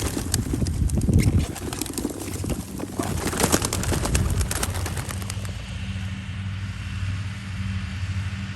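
A basket of young racing pigeons taking off together: a dense rush of wing flapping and clapping for about five seconds, then dying away. A vehicle engine hums steadily underneath.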